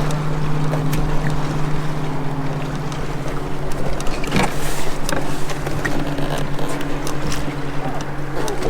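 A boat motor running at a steady, unchanging pitch, with a few light knocks.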